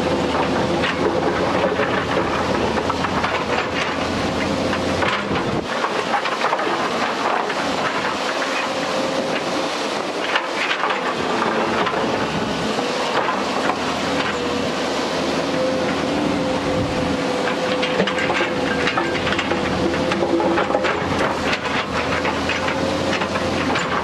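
JCB tracked excavator running under load, its diesel engine and hydraulics working with a steady whine as the bucket moves through rocky soil, with occasional knocks of stone.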